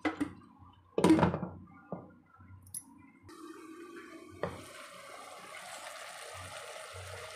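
A pot lid clanks down onto the cooking pot about a second in. From about three seconds in comes a steady hiss and bubbling of the curry simmering under the lid, with a light clink of the lid partway through.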